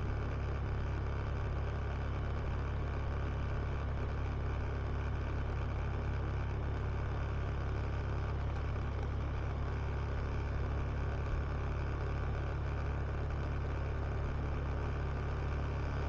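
Honda Beat scooter cruising at a steady speed: a constant low engine drone that neither rises nor falls, mixed with steady wind rush on the rider's neck-mounted camera.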